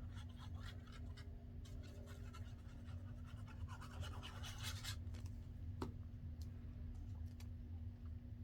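Paper rustling and scratching as paper tags and inserts are handled, busiest about four to five seconds in, with one sharp tap just before the six-second mark. A steady low hum runs underneath.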